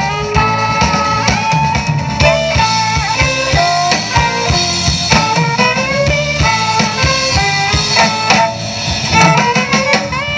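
Live jazz band playing: violin and saxophone melody over electric bass, keyboards and a drum kit keeping a steady beat, with the melody climbing near the end.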